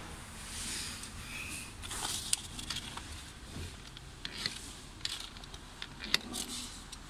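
Scattered sharp plastic clicks and light rubbing of a hand working a car's bonnet release lever and the trim around it. The loudest click comes about six seconds in.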